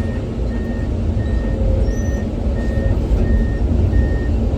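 Komatsu PC210 excavator's diesel engine running under load with its travel alarm beeping steadily, about three short high beeps every two seconds, as the machine tracks up onto a trailer.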